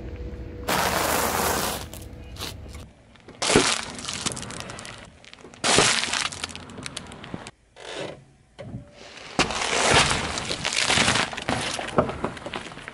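A car tyre rolling over and crushing food items one after another. There are about four separate bursts of crunching, snapping and cracking, each a second or two long, with short quiet gaps between them.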